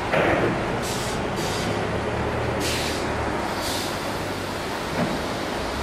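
Steady hum of running plywood-making machinery. There is a clunk just after the start and several short hissing bursts, like air releases, about one, one and a half, nearly three and nearly four seconds in.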